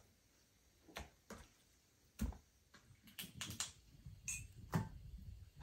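Knife cutting raw chicken on a wooden cutting board: irregular taps and knocks of the blade against the board, bunching together about three seconds in.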